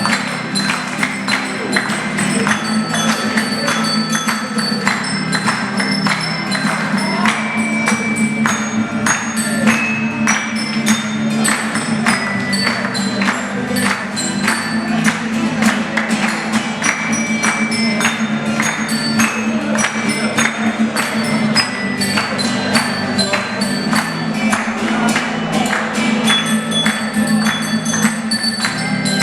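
Live instrumental Ecuadorian folk music: a melody of short, ringing notes over a steady low bass, with regular percussion strokes.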